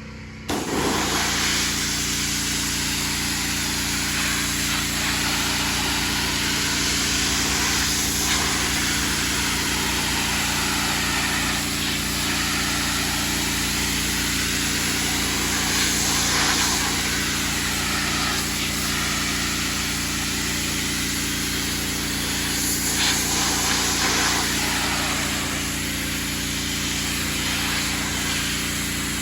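Engine-driven pressure washer running steadily, its spray hissing against teak wood; the sound comes in about half a second in.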